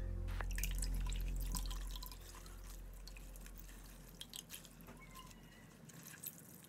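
Water dripping and splashing into a stainless steel bowl as hands squeeze the brine out of salted cucumber slices, in small irregular drips. Background music fades out over the first two seconds.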